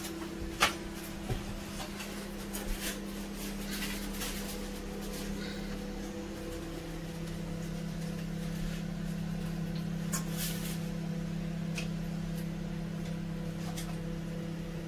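Metal kitchen tongs clicking and tapping against foil and steel trays of chicken drumsticks, a few scattered clicks, the sharpest near the start and about ten seconds in. Under them runs a steady appliance hum whose lowest tone drops slightly about halfway through.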